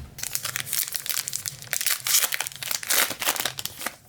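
Trading-card pack wrapper crinkling and tearing as it is handled and opened: a dense, uneven run of crackles.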